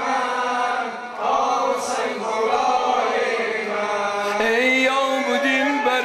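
Male voices chanting a Persian-language mourning lament for Husayn together, a slow sung refrain; about four seconds in, a single male voice takes the lead more clearly.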